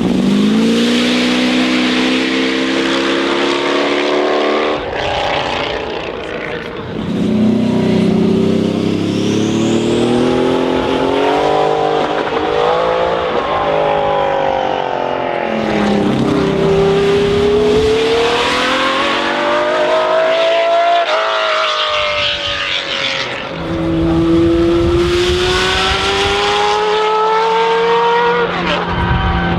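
Racing cars accelerating hard past one after another, their engines rising in pitch through each gear and dropping at the upshifts. There are several passes, each a few seconds long.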